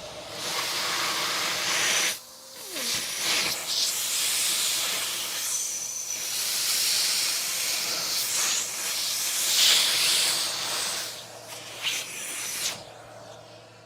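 Industrial air compressor: loud hissing of rushing air that surges and dips, dropping out briefly about two seconds in, over a steady low hum. The hiss tails off near the end.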